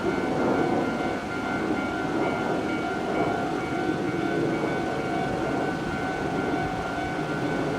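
Japanese level crossing warning bell ringing steadily while a train runs through the crossing, its rumble underneath.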